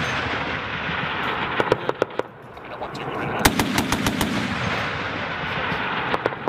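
Two short bursts of rapid automatic gunfire about two seconds apart, over a steady rushing background noise.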